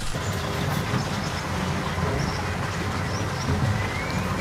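Steady low rumble and hiss of outdoor background noise. A few faint bird chirps and a short rising whistle come in during the second half.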